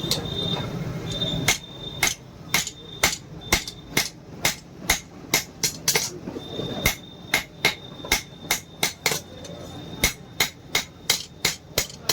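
Blacksmith's hammer forging an iron knife blade on an anvil: a steady run of sharp metal strikes, about two a second, starting about a second and a half in.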